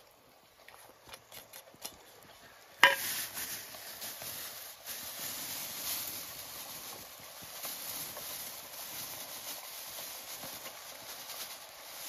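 A metal spoon knocks lightly against a cooking pot over a campfire. About three seconds in comes one sharp metallic clank with a brief ring. After that, diced squash is tipped from a plastic bag into the simmering pot with a steady rustle and patter.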